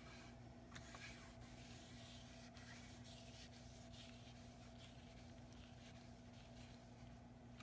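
Faint rubbing and smearing of a gloved hand working mineral oil into the end grain of a wooden cutting board, over a steady low hum.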